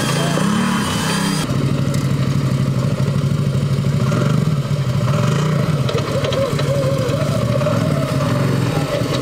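An off-road 4x4's engine running at low revs, the throttle opened and eased again and again so the pitch rises and falls. The sound changes abruptly about one and a half seconds in.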